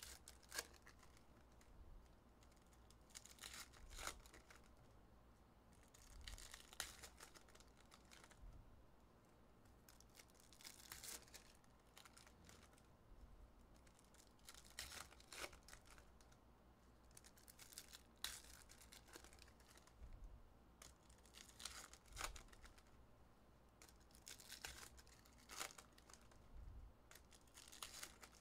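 Foil trading-card pack wrappers being torn open by hand and crinkling, faint, in short bursts every few seconds.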